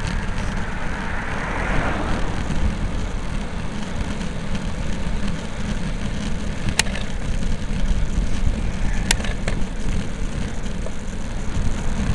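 Wind buffeting the microphone of a camera riding on a bicycle climbing a road, a steady low rumble. Two sharp clicks come about seven and nine seconds in.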